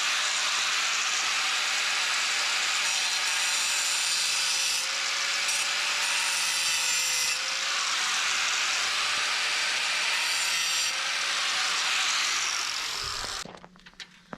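Power saw running steadily through wood, cutting off about a second before the end.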